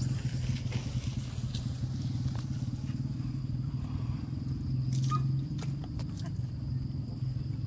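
A small engine running steadily with a low hum.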